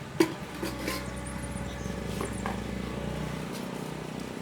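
An engine running steadily at low pitch, with one sharp click about a quarter second in and a few fainter clicks after.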